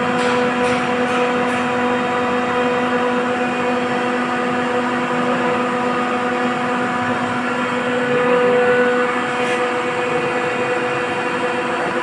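Rotary screw air compressor running steadily: a constant machine noise with a steady hum and tone throughout.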